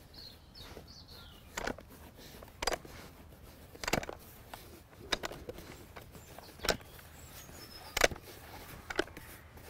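Damp leam being pushed by hand through a riddle (bait sieve) into a bowl of groundbait: quiet rubbing of soil on mesh, broken by about seven sharp knocks roughly a second apart.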